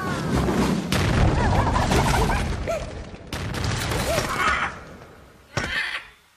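Cartoon sound effects: a loud rumbling, crashing din in two spells, fading out with one short burst near the end. Brief high squeaks sound over it.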